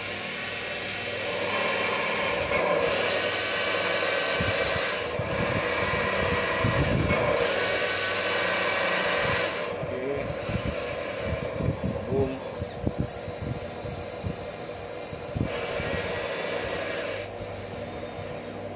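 Drive of a radio-controlled model CAT excavator working its arm: a mechanical whirring that runs in spells of a few seconds with brief breaks as each control is moved, and some knocks among them midway through.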